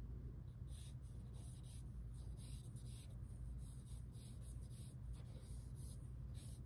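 A drawing tool scratching across paper on a drawing board in quick repeated strokes, about two or three a second, over a steady low hum.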